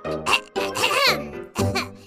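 Playful children's cartoon background music, with a squeaky cartoon voice sound that slides up and back down about a second in.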